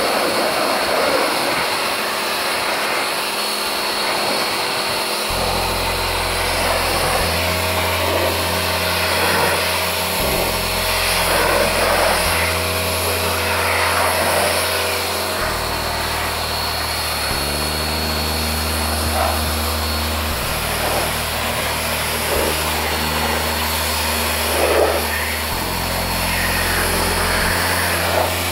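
Electric pressure washer running steadily, its lance jet spraying water onto car bodywork to rinse off snow foam.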